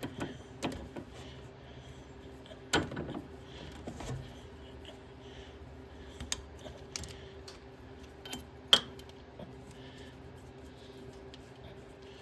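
Scattered metal clinks and clicks of a torque wrench and socket being worked on the bolts of a taper rear hub, the loudest clink near the end, over a faint steady hum.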